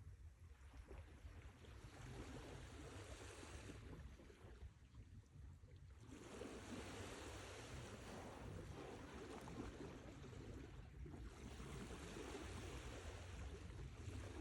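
Faint sea surf: waves washing in and drawing back in slow swells, two or three surges in the span.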